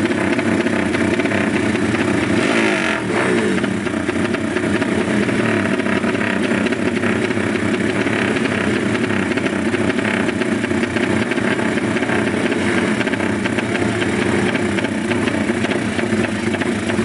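Drag-race motorcycle engines revving hard at the start line, the pitch rising and falling without a break as the throttles are blipped.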